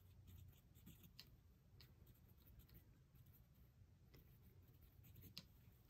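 Near silence, with faint scratching and a few light ticks of a pencil drawing on tracing paper.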